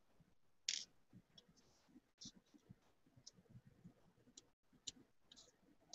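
Near silence, with a few faint clicks of a rivet and a razor-blade straight edge being set down on a dimpled aluminium sheet.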